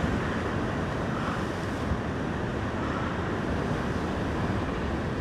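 Heavy ocean swell washing against a rock ledge: a steady rush of surf with no distinct breaks or impacts.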